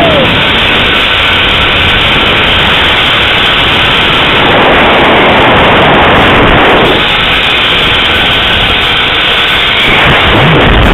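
Zip-line ride: loud, steady rushing of wind over the microphone together with the rolling hum of the trolley running along the steel cable.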